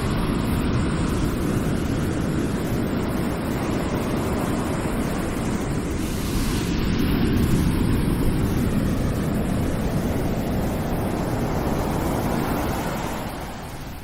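Ocean waves rushing and breaking in a steady wash, swelling a little past the middle and easing off near the end.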